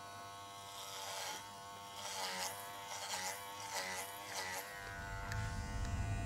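Kenchii Flash 5 cordless adjustable-blade dog clipper buzzing as it is pushed through a thick, dirty coat. Its pitch dips briefly several times as the blade takes load.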